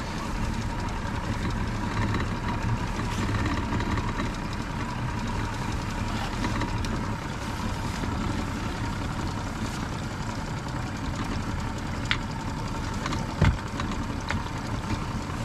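A boat's outboard motor running steadily, a low rumble with a constant whine, while the boat trolls. A few sharp clicks and one low thump come near the end.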